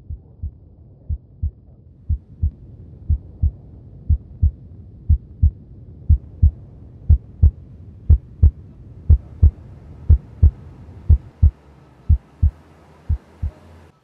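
Heartbeat sound effect: paired low thumps, about one beat a second, over a low drone. The beats swell louder toward the middle and cut off suddenly at the end.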